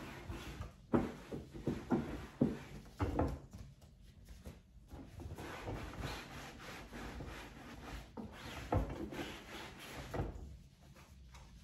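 Cloth rubbing over a fabric lampshade, with rustling and irregular light knocks as gloved hands handle the lamp. The knocks cluster in the first few seconds, with another near nine seconds in.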